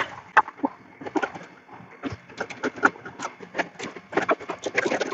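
Irregular light clicks and knocks, several a second, of hands working metal fittings and a strap while fastening an expansion valve's sensing bulb to the refrigerant line inside a refrigerated display case.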